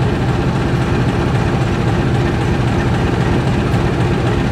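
Diesel locomotive engine idling at close range, a steady low hum that neither rises nor falls.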